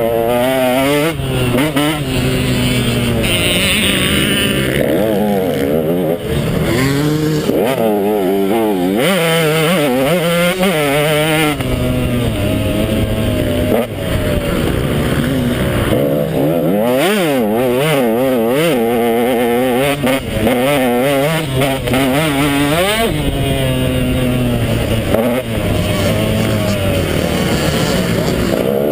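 KTM 150 XC two-stroke dirt bike engine being ridden hard, its pitch climbing and dropping again and again as the throttle is opened and closed.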